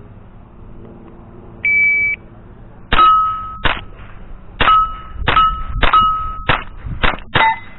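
A shot timer's start beep about two seconds in, then a string of about eight rifle shots from a Thompson Center rifle with Pike Arms upgrades, with steel target plates ringing after several of the hits.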